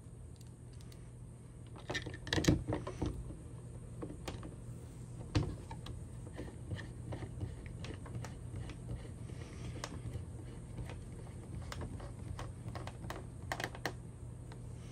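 Flathead screwdriver turning the set screws of a recessed power-bridge outlet box and plate. It makes a run of small clicks and scrapes, loudest about two to three seconds in, with another sharp knock a few seconds later.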